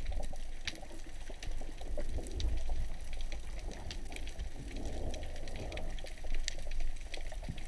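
Underwater sound picked up by a camera in its housing while diving over rocky reef: a muffled, steady low rush of water that swells now and then, with many faint scattered clicks and crackles.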